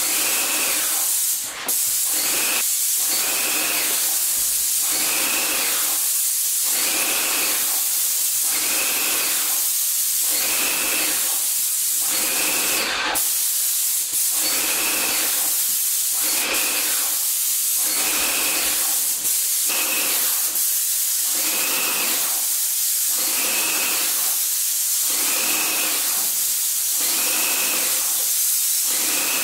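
Airless paint sprayer spraying primer: a loud, steady hiss from the spray gun that pulses about once a second, with a brief break about a second and a half in.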